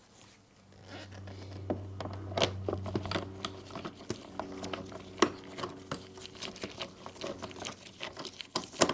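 Light clicks and scrapes of gloved hands and a small tool working at a plastic motorcycle grill panel, with a few sharper taps, over a low steady hum that fades out after about six seconds.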